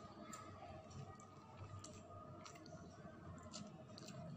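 Faint eating sounds: a person chewing instant fried noodles, with a few soft scattered clicks.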